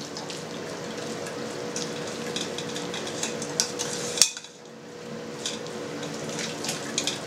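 Boiling water poured from a ceramic electric kettle onto diced pork back fat in a metal colander, scalding it, while a spoon clinks and scrapes against the colander as the fat is stirred. A little past halfway a sharp clink comes and the pour breaks off briefly, then resumes.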